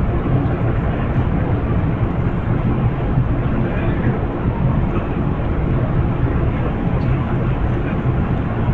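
Amtrak diesel locomotive idling steadily while the train stands in the station: a continuous low engine drone.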